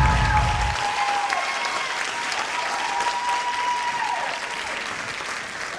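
Audience applauding and cheering, with long held high cheers. The music stops about a second in.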